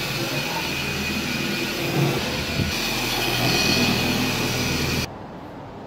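Electric orbital polisher running with a foam pad over car paint, spreading wax: a steady motor whine with a high tone over the whirr of the pad. It cuts off suddenly about five seconds in.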